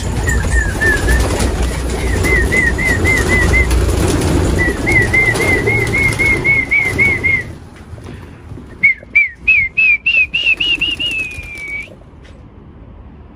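A flock of domestic pigeons flapping out of their loft in a loud rush of wingbeats. Over it run strings of short, high whistled notes, several a second. After about nine seconds the notes climb in pitch among a few sharp claps and end in one longer falling note.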